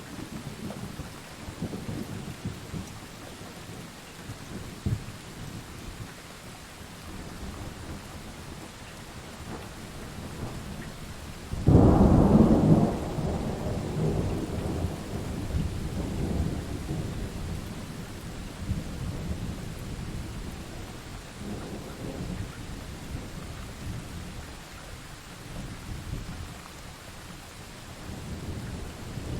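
Thunderstorm: steady rain with low rolling thunder, and a loud thunderclap about twelve seconds in that trails off into rumbling.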